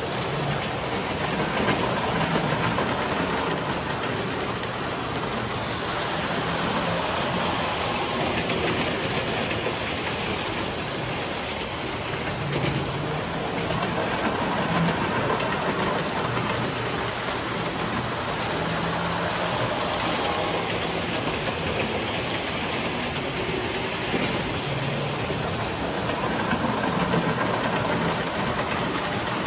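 Tinplate electric toy trains running on metal track: a steady whirring rattle of the motors and wheels that swells and fades a little as the trains pass.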